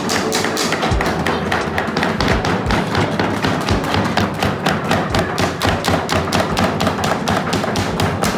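Rapid, repeated tapping with heavier thuds here and there, as of hammers pounding leaves into cloth for ecoprint, over background music.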